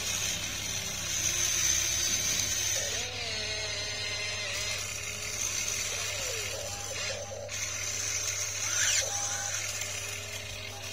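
Small electric motors of a radio-controlled model excavator whining, their pitch rising and falling as the boom and bucket work.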